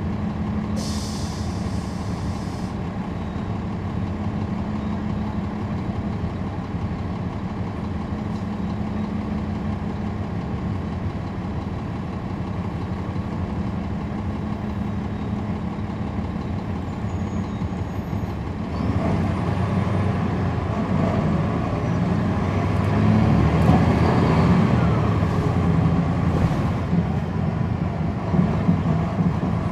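Inside a NABI 40-SFW transit bus, its Cummins ISL9 diesel engine idles steadily, with a short hiss of air about a second in. About two-thirds of the way through the engine grows louder and its note rises as the bus pulls away and accelerates.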